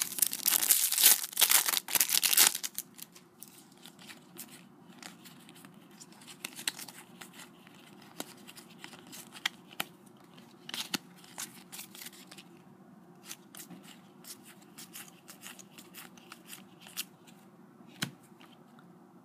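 Foil trading-card packet being torn open, a loud crinkling rip lasting about two and a half seconds. After that come faint scattered flicks and ticks of the cards being handled and laid down.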